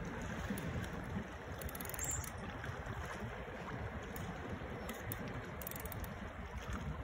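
Steady wind buffeting the microphone over the wash of sea water, with no distinct splashes.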